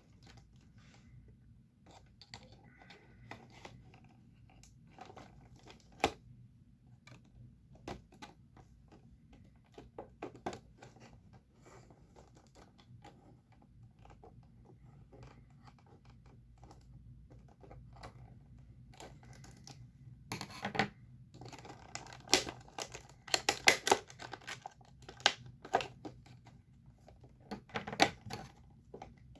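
Toy packaging being handled and opened: scattered scratching and clicking, with a sharp click about six seconds in and a busier, louder flurry of scratches and snaps over the last third.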